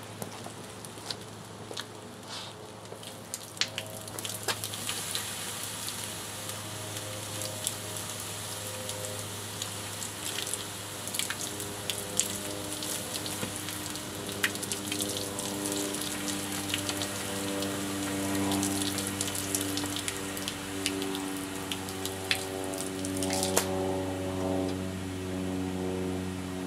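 A burning, melting bobblehead crackling and popping with scattered sharp ticks over a fizzing sizzle and a steady low hum. From about eight seconds in, sustained musical tones come in and grow louder toward the end.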